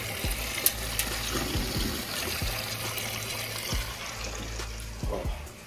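A steady rushing hiss over the low bass line of background music, with a few dull low bumps.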